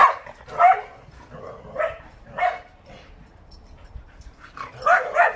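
Shetland sheepdog barking loudly and excitedly as she runs: about six sharp barks, four in quick succession, a pause, then two more close together near the end.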